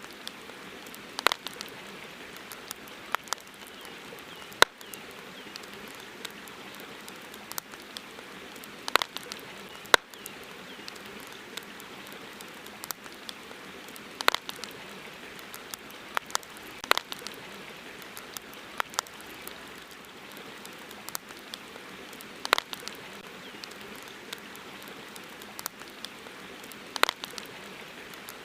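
Wood campfire crackling, with irregular sharp pops and snaps every second or few over a steady hiss.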